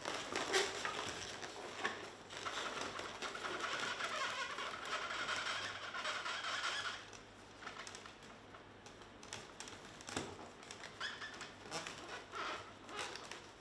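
Latex twisting balloons squeaking and rubbing as they are twisted and handled. The rubbing is dense for about the first seven seconds, then breaks into scattered short squeaks and clicks.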